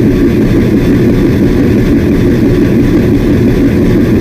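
Washing machine running a spin cycle: a loud, steady low rumble.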